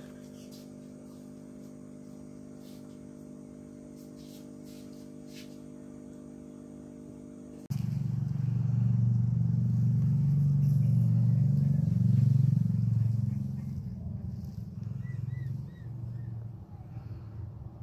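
A steady electrical hum, then from about eight seconds in a loud low engine rumble, like a nearby motorcycle or car, that shifts in pitch and dies down after about six seconds. A few faint high chirps come near the end.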